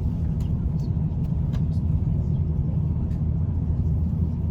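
Steady low rumble inside the cabin of an Airbus A350-900 taxiing on the ground, with a few faint clicks and rattles.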